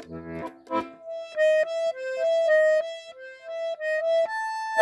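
Instrumental ending of a song played on accordion: a few chords, then a single-note melody line, rising to a held chord and a sharp final chord before the music stops.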